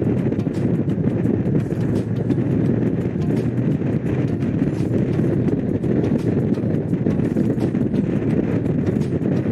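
Honda CX500's liquid-cooled V-twin engine running at a steady pace while the motorcycle is ridden, with wind noise on the microphone.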